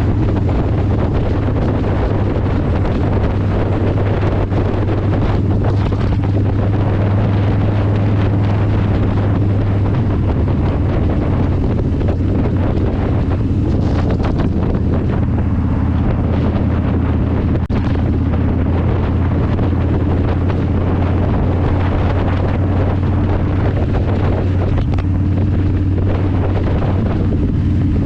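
Loud wind noise blasting the bare microphone of a chin-mounted GoPro Hero9 Black at road speed, over the steady low drone of a motorcycle engine: the camera's mic has no windjammer cover.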